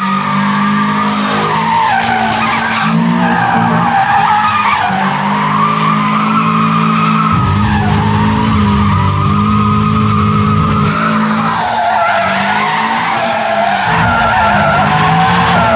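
Miata-swapped VW Rabbit pickup drifting, its Mazda Miata four-cylinder engine running hard under continuous rear tire squeal that wavers up and down in pitch. From about halfway the sound is partly heard from a camera on the car, with added low wind rumble.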